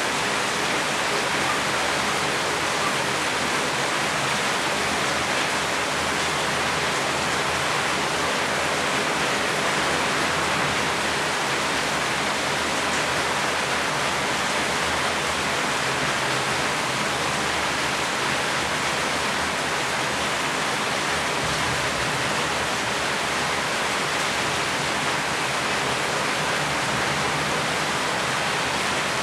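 Steady, heavy rain falling in a continuous hiss, with no individual drops or thunder standing out.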